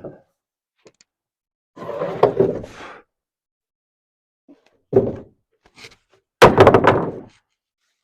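Knocks and thuds of lumber being handled and fitted in roof framing: three short clusters of strikes, about two seconds in, about five seconds in, and the loudest around six and a half seconds in.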